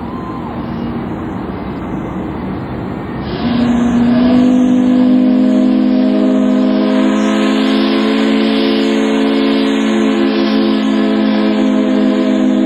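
Ships' steam whistles sounding together in a whistle salute, several pitches at once over a hiss. About three and a half seconds in, a louder low whistle opens up and holds steady through the rest.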